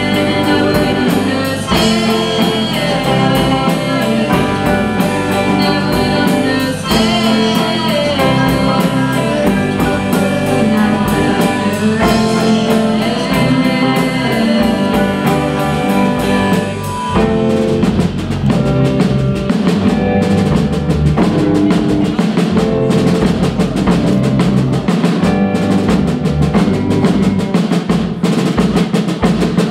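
Live rock band playing: drum kit, electric guitars, bass guitar and keyboard. About halfway through, the busy melodic lines drop away and the drums carry on with steady hits under held chords.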